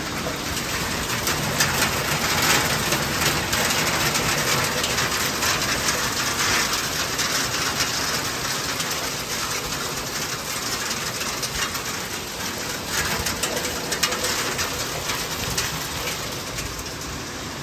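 Heavy hailstorm: large hailstones falling and striking the ground and surfaces around, a dense, steady clatter of countless small hits.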